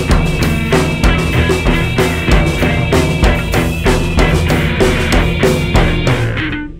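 Free/experimental jazz band music, loud and driving, with a pounding drum kit over sustained bass and mid-range tones. The band stops together near the end, leaving a short decaying ring.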